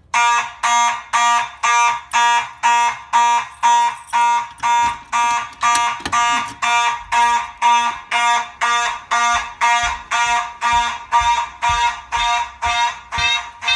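Home fire alarm system in alarm, its horn sounding in loud pulses about twice a second: the alarm set off by pulling a manual pull station during a system test.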